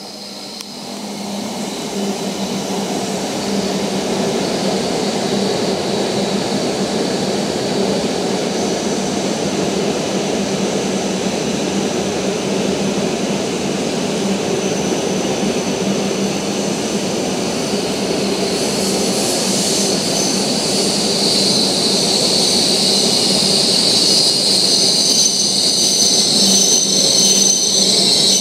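E5 series Shinkansen train running past on its arrival at the platform. A steady rolling rumble with a low hum builds over the first couple of seconds. In the last third a high squeal rises as the train slows almost to a stop.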